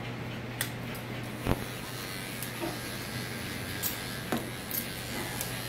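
Electric dog-grooming clipper fitted with a 1-inch snap-on comb, running with a steady low hum. A few light clicks and taps sound over it.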